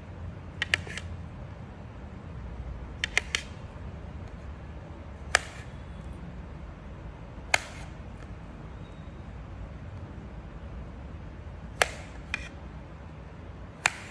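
Kitchen knife chopping through dragon fruit onto a plastic plate: about ten sharp taps at irregular intervals, some in quick pairs or threes, over a low steady hum.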